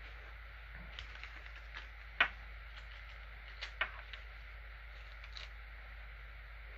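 Faint scattered clicks and light rustling as a small plastic bag of steel needle bearings is handled, with the sharpest clicks about two and four seconds in, over a steady low hum.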